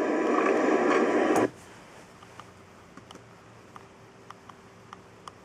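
Steady hiss from a video's soundtrack played through a loudspeaker cuts off suddenly about a second and a half in. What follows is a quiet room with a few faint, scattered clicks.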